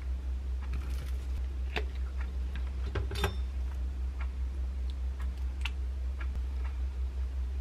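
Light, irregular clicks and crinkles of hands assembling a sandwich on plastic wrap: lettuce and wrap rustling and small taps, the sharpest about three seconds in, over a steady low hum.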